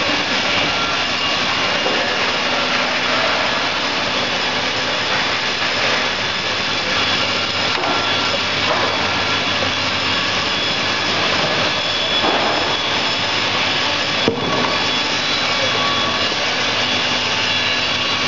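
Four-head horizontal lath resaw machine running: a steady, loud rush of its motors and spinning saw heads with several constant whining tones. A single sharp click about fourteen seconds in.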